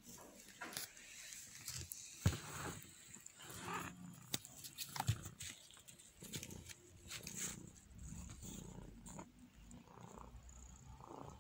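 Dry hay and grass rustling with scattered clicks and knocks, broken now and then by short animal calls.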